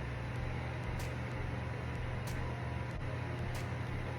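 Steady low mechanical hum of a running motor, with faint ticks about every second and a quarter.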